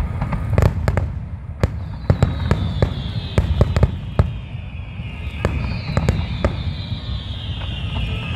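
Aerial fireworks going off in a rapid string of sharp bangs over a steady low rumble. Two long high whistles slowly fall in pitch, starting about two seconds in and again past five seconds.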